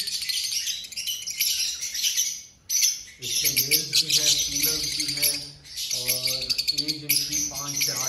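A flock of caged lovebirds chirping constantly, many fast, high chirps overlapping, with a short lull just before three seconds in.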